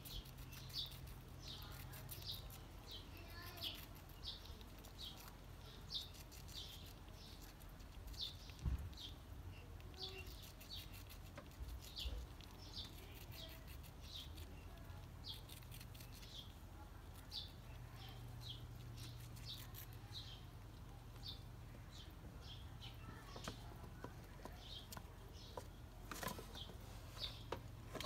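A small bird repeating a short, high chirp about twice a second, over a steady low hum.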